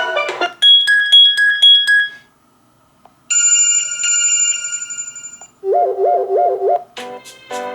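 Fairphone 3 playing short ringtone previews one after another, each cut off suddenly as the next is chosen. There is a pulsing two-tone electronic ring, a second of quiet, a steady bell-like chime, a fast low warbling trill, and then a melodic tune starting near the end.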